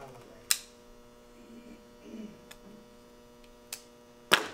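Steady electrical mains hum, with a few sharp clicks and knocks from small items handled at a workbench, the loudest near the end.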